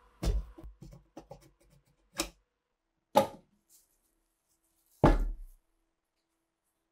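Rusty steel parts of a PPS submachine gun handled and knocked against a tabletop. A cluster of small clicks and taps comes in the first two seconds, followed by a single knock a little after two seconds. Two sharp, loud clunks come at about three and five seconds in, the second with a dull thud beneath it.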